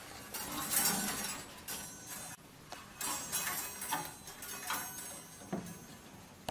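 Wire clothes hangers clinking and rattling on a wardrobe rail as a small monkey climbs among them, in irregular bursts every second or so.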